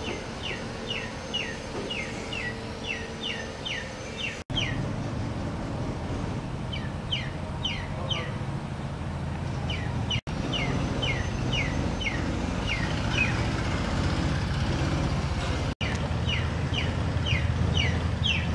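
A bird calling in runs of short, downward-sliding chirps, about three a second, over a steady low rumble. The sound drops out for an instant three times.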